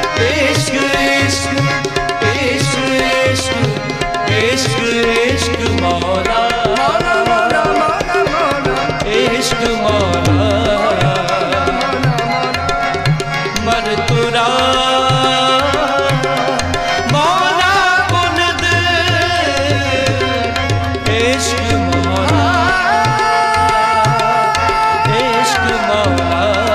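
Devotional music: tabla keeping a steady beat under a melody line with vibrato that slides up in pitch a couple of times.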